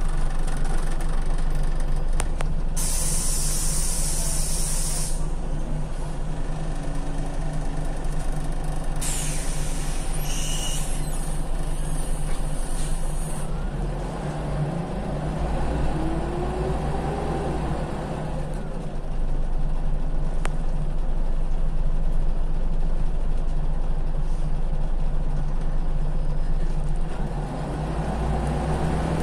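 Scania CL94UB city bus heard from inside the cabin: its diesel engine runs with a steady low hum. Two long bursts of compressed-air hiss come from the bus's pneumatics, about three seconds in and again around nine seconds in. The engine rumble grows louder about two-thirds of the way through.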